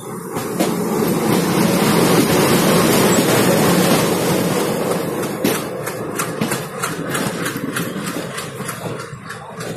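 A locomotive passes close on the next track with a loud rush that peaks a few seconds in and then fades. In the second half, train wheels click over rail joints and points.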